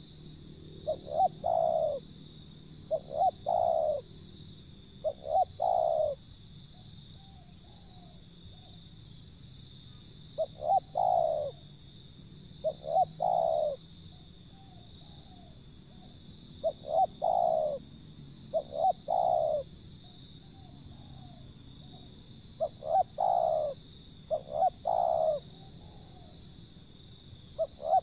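Spotted dove cooing: repeated phrases of a couple of short coos ending in a longer one, given in pairs about two seconds apart with pauses of several seconds between, over a steady faint high tone.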